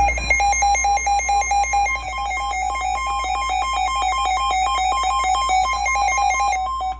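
Emergency Alert System SAME header on NOAA Weather Radio: harsh electronic data tones that switch rapidly between two pitches. This is the digital code announcing a severe thunderstorm warning. It cuts off abruptly near the end, giving way to a quieter steady single tone, the start of the 1050 Hz weather radio alert tone.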